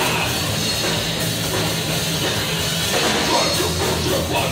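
A live hardcore metal band playing loud and without a break: drum kit, bass and electric guitar.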